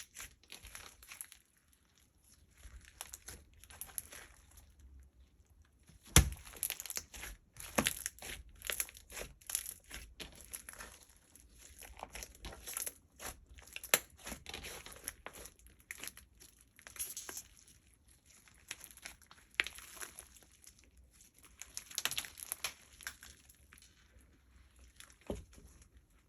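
Slime being worked by hand: a dense run of small crackles and pops as it is squeezed and stretched, with a couple of sharp knocks, about six seconds in and near the end.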